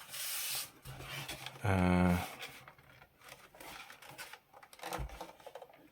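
Hands working at the plastic casing of an Xbox Series S, with a rub or scrape at the start and scattered small clicks and taps after it. A short hummed "hmm" comes about two seconds in.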